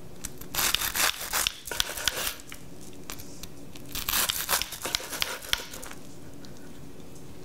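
Knife sawing through the toasted, griddled crust of a sandwich on a wooden cutting board. It comes in two spells of rasping strokes, the first about half a second in and the second about four seconds in.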